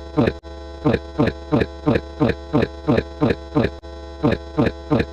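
A short sound effect with a quickly falling pitch, repeated about three times a second at an even pace, one for each number counted. Under it runs a steady low hum with sustained tones.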